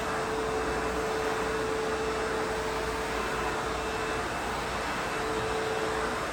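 ProTeam Super Coach backpack vacuum running steadily: an even rush of air with a thin whine that fades out for about a second midway and stops shortly before the end.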